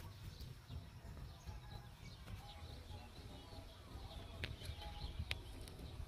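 Quiet rural outdoor ambience: a low rumble on the microphone, faint bird chirps, and a couple of sharp clicks about four and five seconds in.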